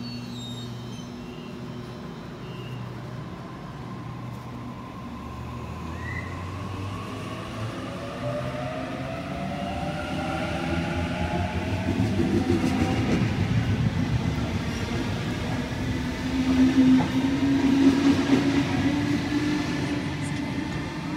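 Sydney Trains Waratah A-set electric double-deck train pulling away from the platform: the traction motor whine rises steadily in pitch as it accelerates, over wheel and rail rumble that builds as the carriages pass, loudest about two-thirds of the way through.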